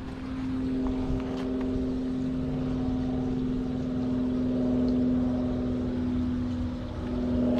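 Boat motor running with a steady hum at one pitch, dipping briefly near the end.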